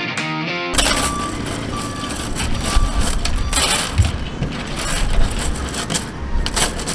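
A few notes of intro music end about a second in, giving way to wind rumbling on the microphone and the light clatter of a bundle of thin wooden sticks being handled and spread on a table.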